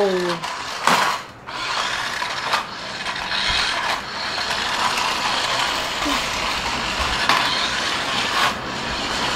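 Battery-powered 1:24-scale remote-control toy car's small electric motor and plastic gears whirring as it drives over a tiled floor. A few sharp knocks come through along the way.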